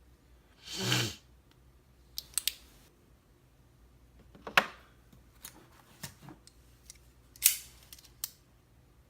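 Scattered small metal clicks and short scrapes of hand tools working on a Mul-T-Lock Classic pin-tumbler cylinder as it is taken apart. A brief scraping rustle comes about a second in, and sharper clicks come about halfway through and again near the end.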